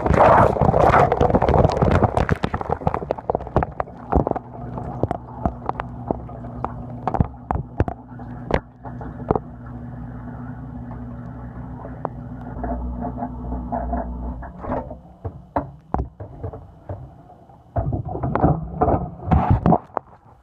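Dishwasher running, heard from inside the machine: a loud spray of water at first, then a steady motor hum with scattered drips and clicks of water hitting. The hum stops near the end, followed by a few loud knocks.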